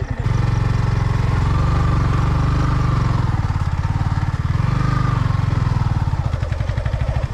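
Motorcycle engine pulling under throttle, its revs rising and falling twice.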